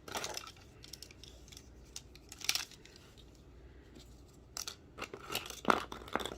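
Handling of magnetic building tiles and their packaging: short scattered rustles and crinkles with a few light clicks, busier near the end.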